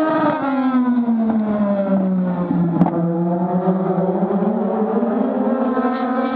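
Legend race cars' Yamaha four-cylinder motorcycle engines running at speed around the oval. The engine note falls in pitch for about two and a half seconds as they lift, then climbs steadily again as they power back up. A single sharp click comes about three seconds in.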